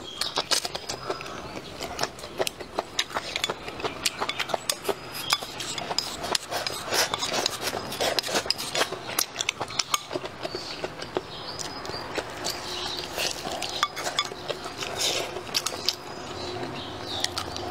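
Close-miked eating: chewing on a green chili pepper and a braised chicken foot, with wooden chopsticks clicking and scraping against a ceramic bowl in many irregular sharp clicks.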